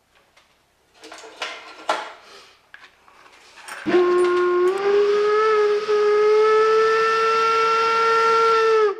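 A few light knocks and rustles, then a train whistle sounds one long blast of about five seconds, starting about four seconds in, rising slightly at first and then holding its pitch until it cuts off near the end.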